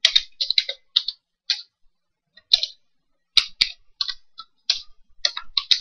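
Computer keyboard keys clicking under fast typing, in irregular runs of keystrokes broken by short pauses around the middle.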